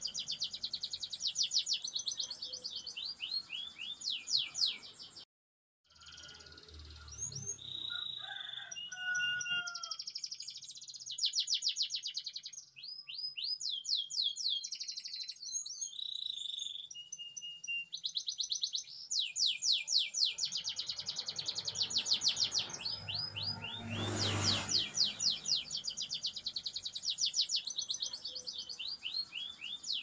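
Domestic canary singing long, fast trilled rolls, broken by a brief silence about five seconds in and a stretch of slower, more varied notes, before the rapid rolls return.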